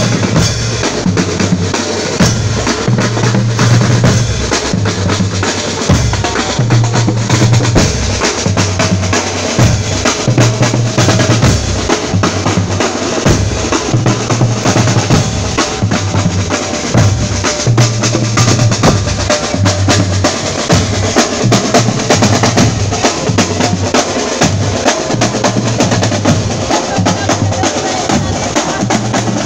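Marching band drum line playing a parade march: deep bass drums beating a steady rhythm about once a second, with snare drums and crashing cymbals over them.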